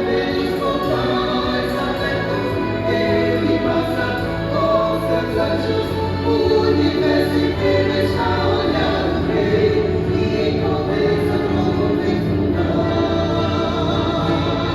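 A vocal ensemble singing a hymn in harmony over instrumental accompaniment.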